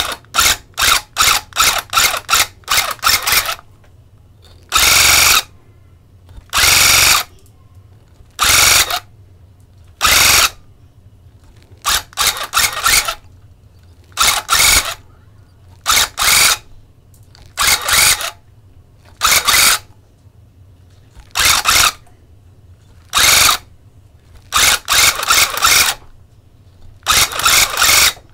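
Electric rug-tufting gun punching yarn into the backing in stop-start trigger bursts: many quick bursts close together, and a few longer runs of about a second.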